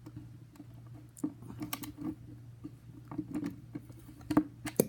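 Irregular clicks, taps and scrapes of a screwdriver and skate tool on a skateboard's truck bolts and nuts as they are turned loose.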